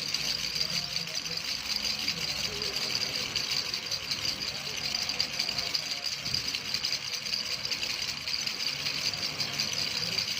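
Baby rattle shaken steadily and fast, a continuous dense rattling with no pauses.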